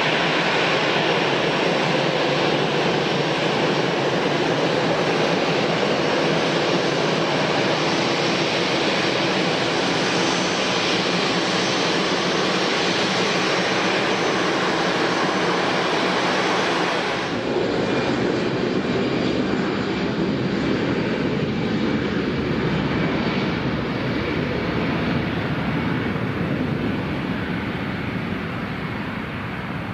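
Airliner engines running steadily, a loud, dense wash of engine noise. About seventeen seconds in the sound changes abruptly and loses its highest hiss, then slowly grows quieter toward the end.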